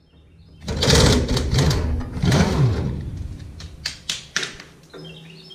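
Hand tools working on a hay baler's pickup reel: a loud scraping and squeaking of parts rubbing together for about two seconds, then three sharp clicks about four seconds in.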